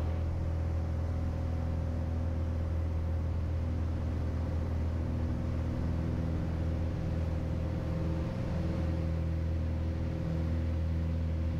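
Piper Turbo Arrow's turbocharged engine and propeller at full takeoff power during the takeoff roll, a steady drone heard from inside the cabin.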